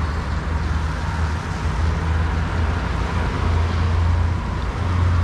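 Road traffic noise: a steady low rumble of cars passing on the road.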